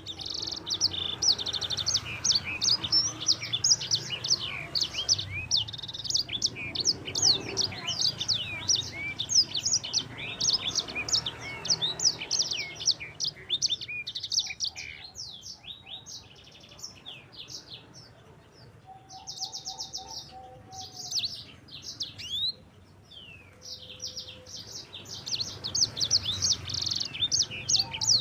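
A sanger songbird singing a fast, continuous rolling song of rapid high chirps and short glides. The song thins out for several seconds past the middle and picks up densely again near the end.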